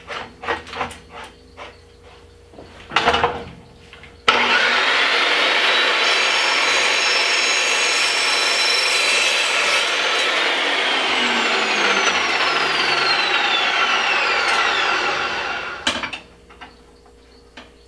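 Makita LC1230 cold cut metal chop saw cutting a stainless steel pipe. A few clicks and knocks come as the pipe is clamped, then about four seconds in the saw starts suddenly and runs loud and steady through the cut. From about ten seconds its whine falls steadily in pitch as the blade winds down, and light clicks follow as the cut pipe is handled.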